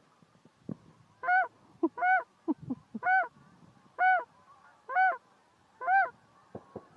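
Canada geese honking: six loud honks about a second apart, each rising then falling in pitch, with fainter calls between them.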